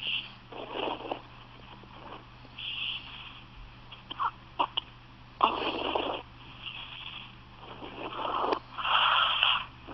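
A person with hiccups, breathing in and out noisily, recorded on a phone. There are short sharp catches in the breath a little after four seconds and a louder one with a sudden start about halfway through.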